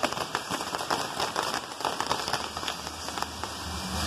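Fireworks on a tall scaffold tower spraying sparks, with a dense, fast crackle of many small pops.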